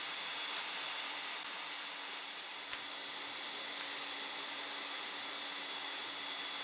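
Hilton Dust Eater industrial vacuum running steadily, a constant high rushing hiss of motor and airflow with a faint steady whine under it.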